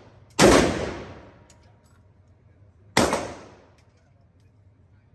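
Two single shots from a 7.62×39 AK-pattern gun, about two and a half seconds apart, each followed by a short ringing echo that dies away within about a second, as in an indoor firing lane.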